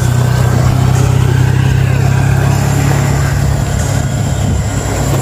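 Small motor scooter's engine running close by as it passes on the road and pulls away, a steady low hum with road noise.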